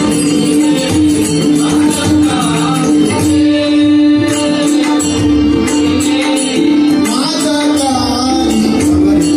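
Live Marathi devotional bhajan: a male singer's melody over a steady held harmonium note, with regular drum beats and jingling cymbal strokes keeping the rhythm.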